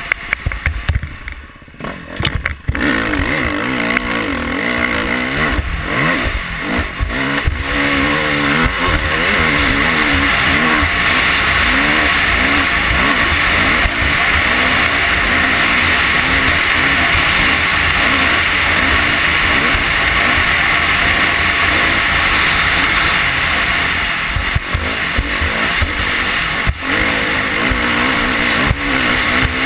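Dirt bike engine running hard at speed, its revs rising and falling. It is quieter and uneven for the first few seconds, then held steady under load, with wind buffeting the microphone.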